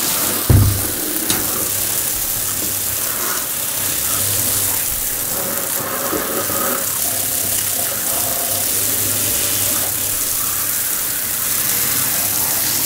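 Shower water spraying onto a boot and socked feet in a bathtub, a steady rushing hiss. A dull thump about half a second in.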